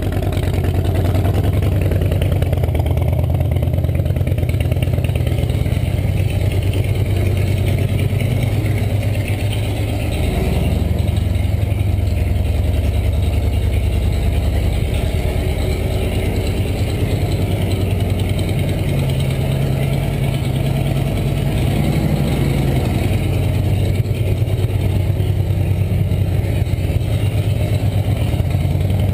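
2009 Harley-Davidson Softail Rocker C's Twin Cam 96B V-twin running at low rpm through a Vance & Hines Big Radius 2-into-2 exhaust. It is a steady, deep, pulsing exhaust note near idle, with only small changes in engine speed.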